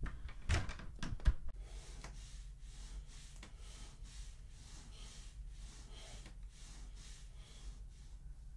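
A door shuts with a couple of knocks and a sharp latch click in the first second and a half. Then comes faint, quick, rhythmic breathing, about two to three breaths a second.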